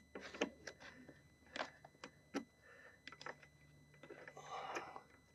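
Faint, scattered clicks and taps of a screwdriver and a small metal fastener being worked out of a car door's inner frame, with a brief soft rustle near the end.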